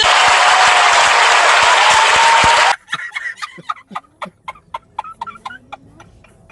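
Aerosol air horn blast, a harsh, noisy blare lasting nearly three seconds that cuts off abruptly. A run of short, quieter clicks follows.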